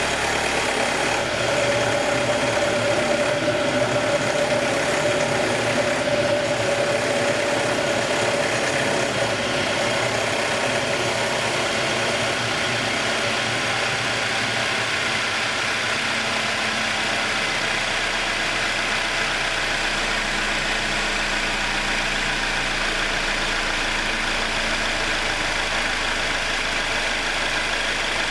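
2021 Jeep Wrangler's 2.0-litre turbo four-cylinder idling after a cold start. About a second and a half in, a louder tone rises from the intake, the 'deep breath' that ends the ticking cycle it goes through on every cold start; the tone fades over several seconds and the engine settles to a normal steady idle.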